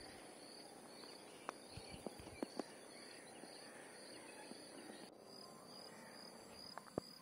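Very faint outdoor lake ambience: a steady thin high hiss with faint repeated chirping, broken by a few soft clicks about one and a half, two and a half and seven seconds in.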